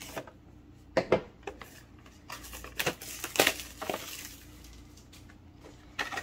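Plastic shrink wrap being cut and pulled off a small cardboard product box: a string of crinkling and tearing rustles with a few sharp clicks, the sharpest about a second in.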